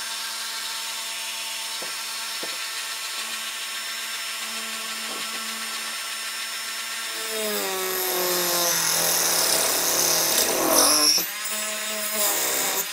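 Rotary tool with a small circular saw blade (Chicago Electric rotary saw blade) whining at a steady speed, then cutting into a block of pine: from about halfway through, the motor's pitch sags under load and a rasping cutting noise builds for about three seconds, then the pitch climbs back as the blade runs free near the end.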